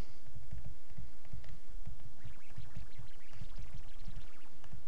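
Stylus writing on a tablet screen: a fast, uneven run of soft low thumps with faint ticks from the pen strokes.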